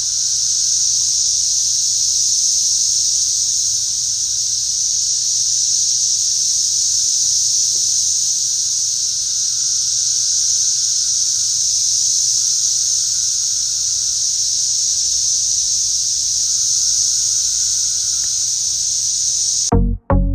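Loud, steady chorus of many cicadas, a constant high droning buzz that cuts off suddenly near the end.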